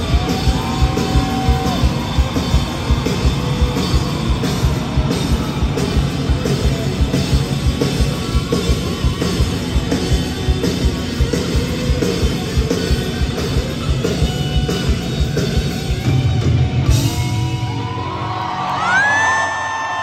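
Live rock band playing electric guitars over a steady drum beat. The drums drop out about sixteen seconds in, and near the end a long, high whoop rises over the fading music.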